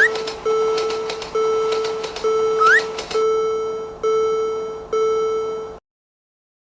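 Railroad-crossing warning bell sound effect ringing its repeated 'kan-kan' strikes, a little more than one a second, each fading away, until it cuts off suddenly near the end. Two short rising whistle chirps sound over it, one at the start and one under three seconds in.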